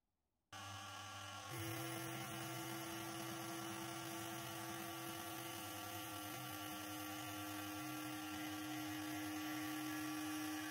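Axminster Engineer Series bench lathe starting up about half a second in, then running steadily with a constant hum and whine while turning a square wooden sanding-drum blank, glued on a stainless rod, down to round.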